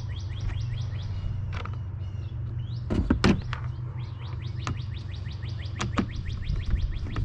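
A songbird singing in rapid runs of short rising chirps over a steady low hum. Several sharp clicks and knocks of a plastic turn-signal housing and fairing being handled and fitted break in; the loudest pair comes about three seconds in.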